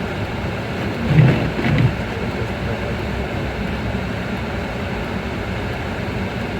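Steady road noise inside a car driving through a snowstorm: the engine and tyres running on a snowy road. About a second in there are two brief louder bumps close together.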